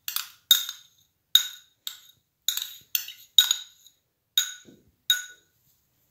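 Metal spoon clinking and scraping against bowls, about ten sharp ringing clinks, as sweetened condensed milk is scooped from a small white bowl into a glass mixing bowl.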